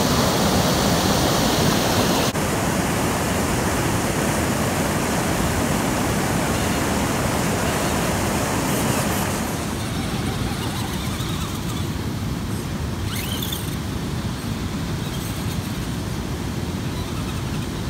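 Steady outdoor rushing noise, even and without any tone, that shifts at a cut about two seconds in and drops a little about nine and a half seconds in.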